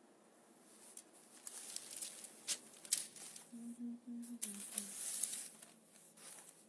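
Paper rustling and crinkling as a calligraphy copybook and practice paper are handled, with sharp crackles. About halfway in, a woman's voice starts humming a tune in short stepped notes.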